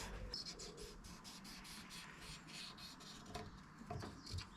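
Faint, quick back-and-forth rubbing strokes of abrasive paper worked by hand inside a motorcycle small-end bush, lapping out a slight tight spot so the pin fits.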